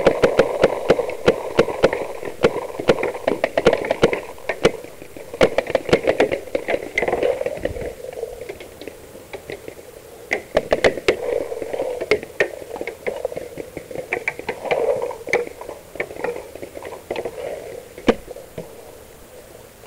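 Paintball markers firing across the field: many sharp, irregular pops, some in quick bursts, over a steady rushing noise.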